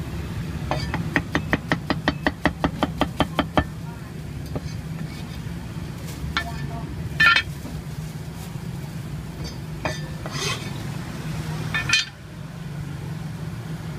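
Cleaver chopping rapidly through roast meat and green onions on a thick wooden chopping board, about six strokes a second for about three seconds. Then a few scattered knocks and clatters, the loudest about seven seconds in, over a steady low hum.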